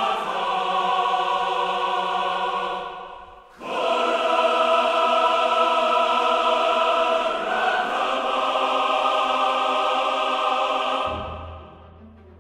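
Choral music of long, held chords. It fades out about three seconds in, comes back strongly, and fades again near the end, leaving a low held note.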